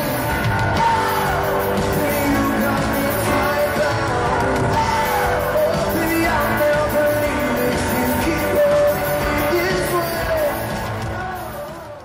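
Live band music with a male lead singer, heard from the audience with fans yelling and screaming over it. It fades out near the end.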